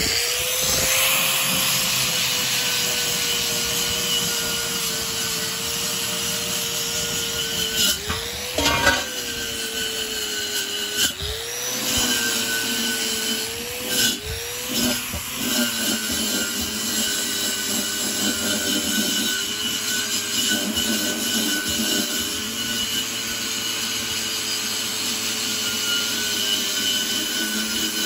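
Angle grinder with a wire wheel brush running and scrubbing rust off a steel tank. The motor's whine is steady, dipping in pitch and recovering several times in the middle as the wheel is pressed into the metal.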